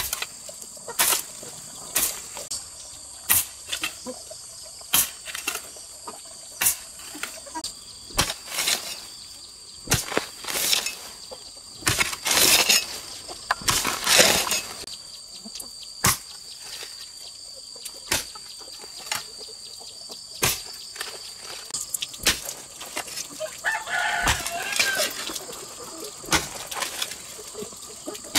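Regular strikes of a hoe digging into soil, roughly one a second, over a steady high insect drone. A rooster crows near the end.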